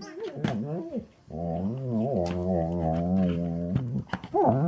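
German shepherd groaning in frustration over a toy he can't destroy: a few short wavering whines, then one long, low moan of about two and a half seconds, and a rising and falling whine starting near the end.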